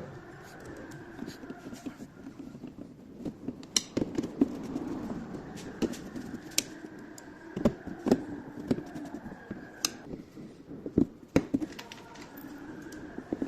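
Metal parts and tools being handled during window regulator repair: scattered sharp clicks and knocks, several of them loud, over a steady hum that stops twice for a couple of seconds.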